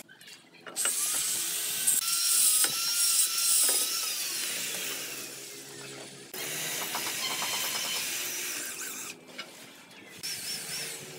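Cordless drill driving screws to fix roof tiles, in three runs: two long ones and a short one near the end. The motor's whine wavers under load and winds down after the first run.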